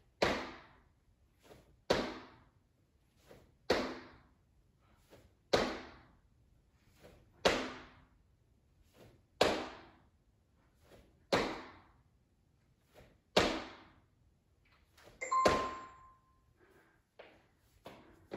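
Sneakers landing jump squats on a wood-look floor: a sharp thud about every two seconds, nine in all, each with a short ringing tail, with faint taps between. A short beep sounds with the last landing, after which the jumping stops.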